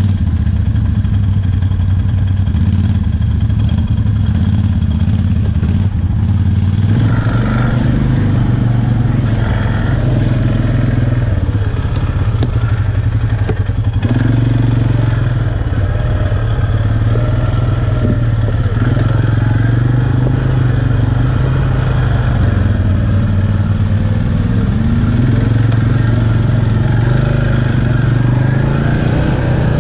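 ATV engine running under way on a muddy trail, its pitch rising and falling with the throttle. It gets louder about seven seconds in.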